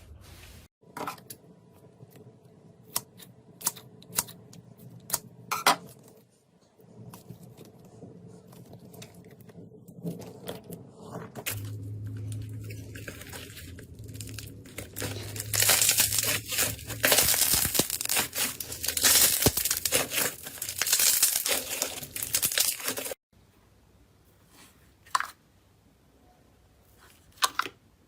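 Slime being squeezed and pulled apart by hand, close up. A few sharp pops and clicks come first, then about seven seconds of loud, dense crackling from about halfway in. After that the sound drops off to a few scattered pops.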